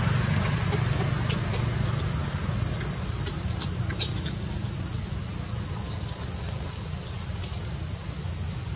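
Steady outdoor ambience: a high, even insect drone with a low rumble underneath, and a few short clicks in the first half.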